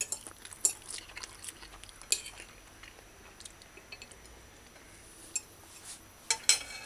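Metal fork clinking and scraping against a plate of rice: a handful of short, sharp clicks spread through with quiet between, the loudest two close together near the end.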